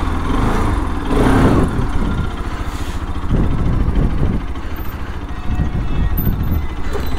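Bajaj Pulsar RS 200's single-cylinder engine running at low revs as the motorcycle rolls off slowly. The engine note rises briefly about a second in.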